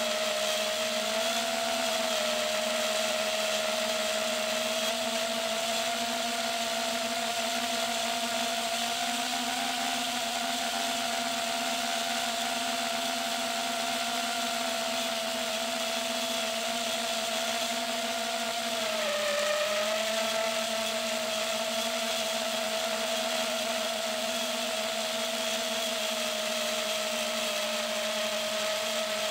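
FPV quadcopter's electric motors and propellers whining steadily, heard from the camera on the drone. About two-thirds of the way through, the pitch dips briefly and climbs back as the throttle is eased and opened again.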